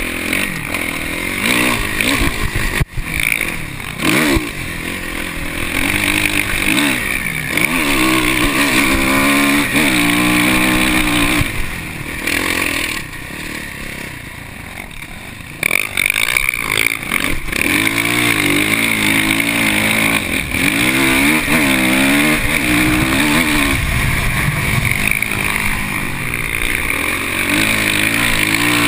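Dirt bike engine revving up and down with the throttle while riding over sand dunes, heard from a camera on the bike. It eases off for a few seconds near the middle, then pulls hard again.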